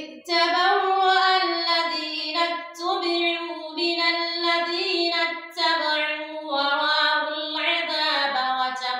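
A woman's voice reciting the Quran in Arabic in a melodic, chanted style. The notes are long and held, with two short pauses.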